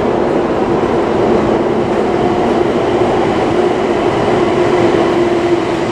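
Toei Mita Line 6300-series subway train approaching along the tunnel into the station: a steady rumble with a held tone running through it.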